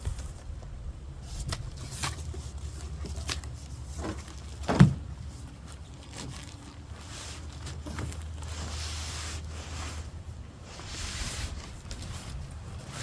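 A truck bed tent being unpacked from its cardboard box: scattered clicks and handling sounds, a single thump about five seconds in, then two stretches of rustling packaging later on.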